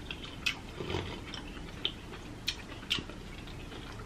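Close-miked wet chewing and mouth smacks of a person eating seafood boil, a handful of short sharp smacks at uneven intervals over a low steady background.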